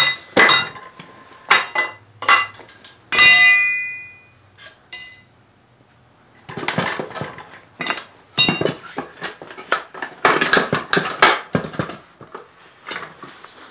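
Metal clanks and clinks from a manual transmission being taken apart on a concrete floor. About three seconds in, one sharp clank rings out for most of a second. From about halfway through comes a run of rattling, scraping knocks as pry bars are worked into the transmission case.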